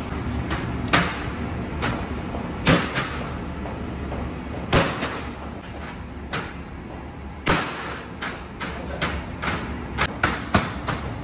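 Hand-pulled lagman noodle dough slapped against a stainless steel table: sharp slaps every couple of seconds, then a quicker run of lighter slaps near the end, over a steady low hum.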